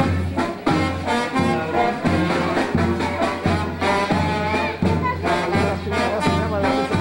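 Brass band playing a tune, with a sousaphone's low bass note on each steady beat and horns carrying the melody above it.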